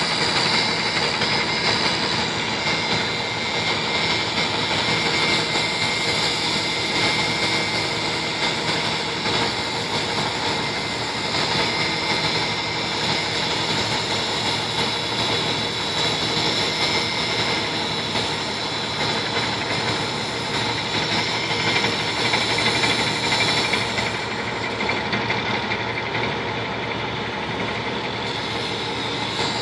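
Crawler dozers' diesel engines running steadily as they push and spread gravel base, with an excavator working nearby.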